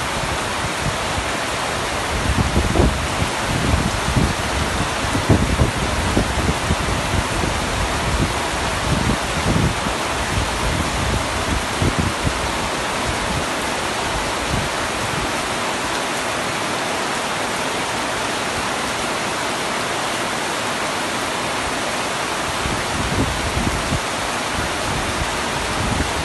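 Heavy rain falling steadily on a camping tent's fabric roof: a dense, even hiss, with irregular low thuds and rumbles through the first half and again near the end.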